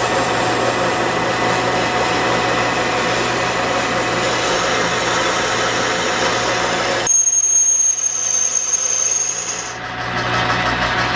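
Metal lathe running under cut, its tool turning the recess in the face of a steel faceplate. About seven seconds in, the lower part of the sound drops away and a steady high whine holds for a few seconds before the fuller cutting sound returns.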